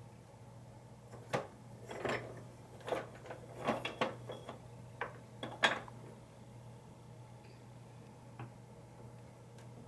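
A scattered series of light clicks and knocks, most of them in the first six seconds and a couple more later, over a faint steady low hum: handling noise close to the microphone.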